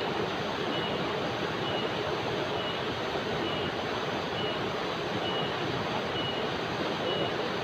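Steady rush of river rapids over rocks, with a calling jenggeret insect giving a short, high chirp about once a second above it.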